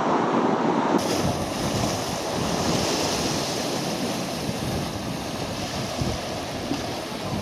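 Wind buffeting the microphone, then from about a second in, sea waves breaking and washing over rocks in a steady rushing hiss, with gusts of wind on the microphone.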